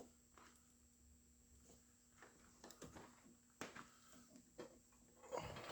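Faint, scattered clicks and knocks from hands working on car dashboard parts and wiring, irregular and spaced apart, with a small cluster near the end.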